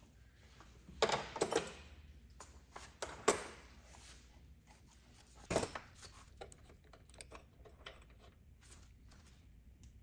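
Scattered small metal clicks and knocks, the loudest about five and a half seconds in, from the rocker shaft and rocker arm being worked out of a cylinder head on a Lycoming O-320-E2H aircraft engine.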